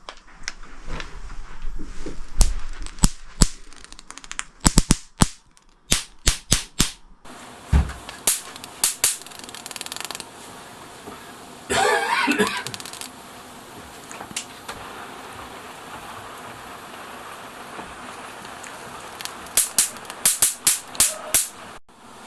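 Runs of sharp knocks and clicks, a few strokes at a time, with a short rattling scrape about twelve seconds in and another quick run of knocks near the end.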